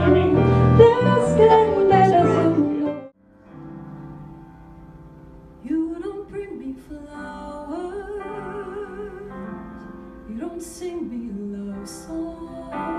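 A woman singing with a piano and bass guitar band; about three seconds in it cuts off suddenly to a quieter live recording, where a piano plays alone briefly and then a woman's voice comes back in singing over the piano.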